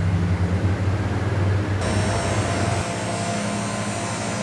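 Distant HC-130J turboprop aircraft droning overhead as a steady low hum. About two seconds in, the sound changes abruptly at an edit to a slightly quieter steady hum with a faint high whine.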